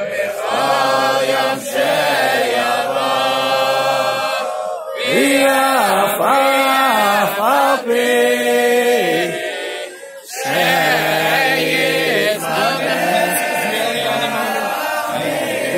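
A large group of men singing together in unison, unaccompanied, in long sustained phrases; the singing breaks off briefly about five seconds in and again about ten seconds in before picking up again.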